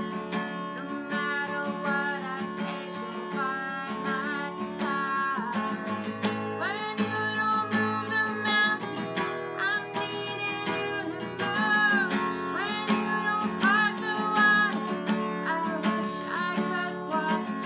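A woman singing while strumming an acoustic guitar.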